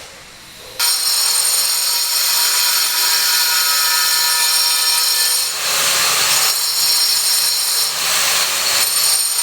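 A power tool cutting, starting suddenly about a second in and running loud and steady with a high whine.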